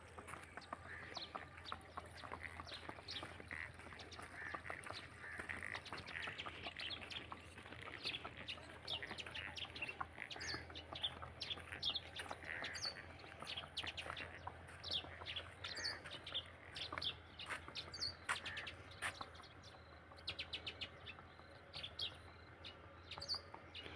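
Small birds chirping: many short, quick calls overlapping, faint, over a steady low hum.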